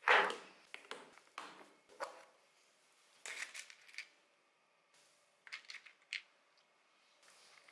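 Clear plastic parts organizer box set down with a sharp clatter, followed by small plastic parts rattling and clicking in its compartments as tweezers pick through them. The first clatter is the loudest; the later clicks come in short scattered clusters.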